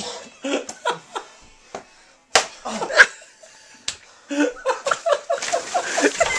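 Two sharp smacks about half a second apart, from a staged mock-wrestling blow, followed by giggling.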